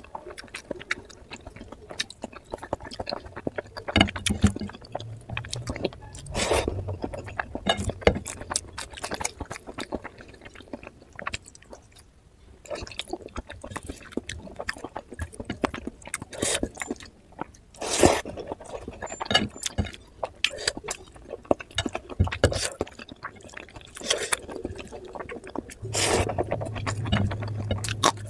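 Close-miked wet chewing, lip smacks and mouth clicks of someone eating oily mutton fat curry and rice by hand, with sticky squelching of fingers in the curry-soaked rice.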